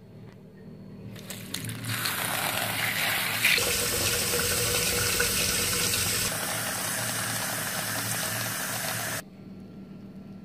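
Water running into a plastic bowl of dried yellow split peas, filling it to wash and soak them. It builds over the first couple of seconds and stops abruptly about nine seconds in.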